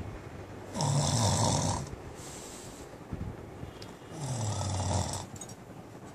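A man snoring, put on as a comic show of boredom. There are two loud snores about three seconds apart, each dropping in pitch and followed by a softer breath out.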